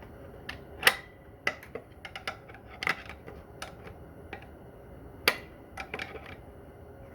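Loose metal transmission parts and tools clinking and knocking while a Corvair Powerglide transmission is taken apart: a string of sharp, irregular clacks, the loudest about a second in with a short metallic ring.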